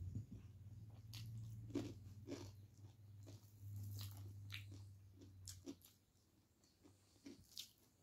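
Faint eating sounds from a person eating rice by hand: scattered small clicks and smacks of chewing and of fingers mixing rice on the plate. A low steady hum sits under them and fades out about six seconds in.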